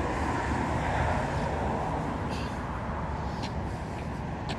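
Steady road traffic noise, a low rumble under a hiss, with a few short high ticks in the second half.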